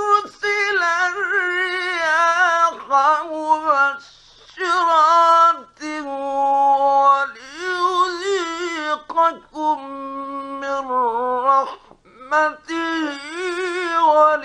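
Solo male voice reciting the Quran in the slow, melodic mujawwad style: long, ornamented, drawn-out phrases that bend up and down in pitch, with brief breaths about four seconds in and again near the twelve-second mark. The voice comes from an old radio recording.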